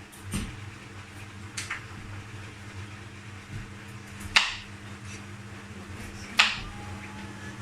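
Four sharp clinks or knocks a second or more apart, each ringing briefly, over a steady low hum.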